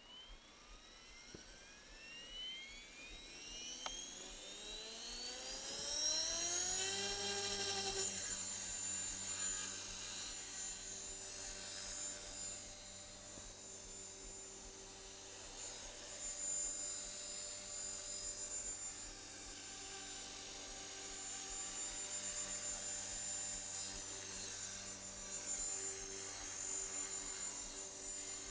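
Align T-Rex 450 Pro electric RC helicopter spooling up: the motor and rotor whine rises steadily in pitch and grows louder for about eight seconds. It then holds a steady high whine as the helicopter lifts off and flies, shifting a little in pitch and loudness.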